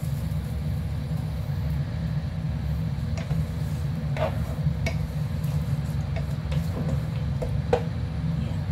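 A wooden spatula stirring a thick mung bean stew in a pan, giving a few short knocks and scrapes against the pan over a steady low rumble.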